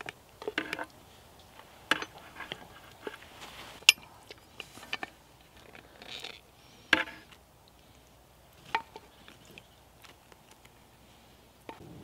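Wooden spoon knocking against metal cookware as gravy is spooned over a stew: a handful of scattered sharp taps and clinks, the loudest about four seconds in.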